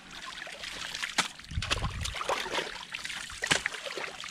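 Water sloshing and splashing as people wade through a shallow flooded field, dragging a fishing net. Irregular sharp splashes come throughout, the sharpest about three and a half seconds in.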